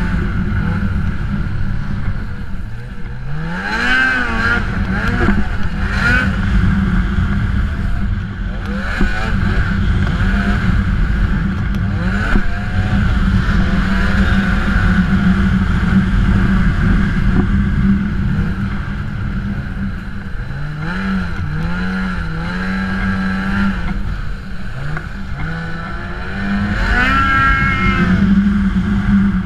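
Ski-Doo snowmobile engine running hard under load through deep snow, held at high revs. The pitch climbs as the throttle is opened at about three seconds in and again near the end, with a few shorter rises and drops in between.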